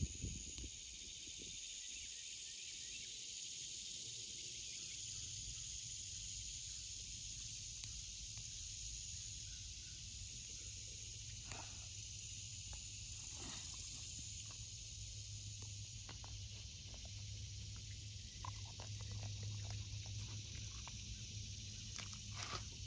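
Dog licking and chewing watermelon flesh: short wet smacking clicks, a few at first and then frequent in the last few seconds. Behind it runs a steady high buzz of insects.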